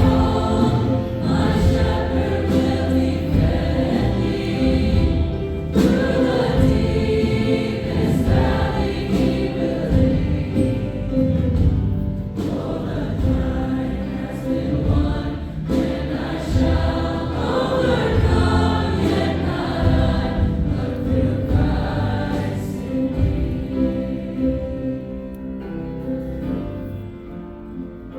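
Choir singing a gospel worship song over instrumental accompaniment, getting quieter over the last few seconds.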